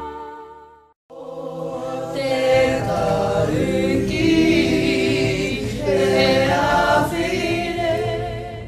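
Earlier music fades out within the first second, then a choir begins singing, several voices held on long notes over a low steady note.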